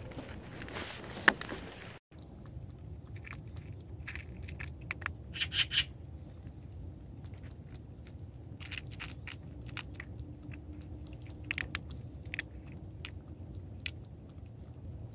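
Two cats crunching dry kibble, with scattered short crisp crunches. For about the first two seconds, water is poured from a plastic bottle into a bowl.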